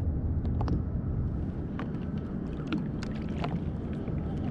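Wind buffeting the microphone and river water moving against a kayak's hull, a steady low rush with scattered small clicks and knocks.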